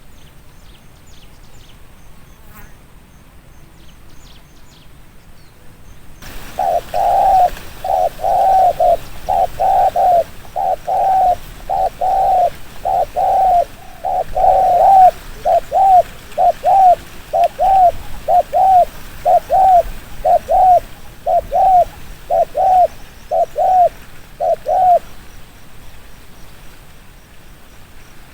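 Spotted dove cooing in a fast, even run of short coos, about one and a half a second, starting some six seconds in and stopping about three seconds before the end.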